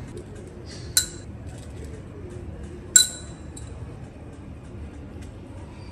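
Two sharp clinks about two seconds apart, each with a short ringing tone, of a spoon tapping a stainless steel plate as spice powders are put on it.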